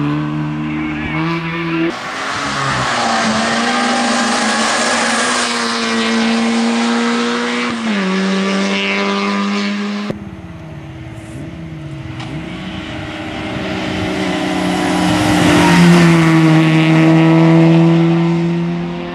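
Citroën Saxo VTS rally car's four-cylinder engine racing hard, its note dropping at upshifts about two and eight seconds in. After a sudden cut it comes in quieter, then grows louder and climbs in pitch to its loudest as the car passes near the end.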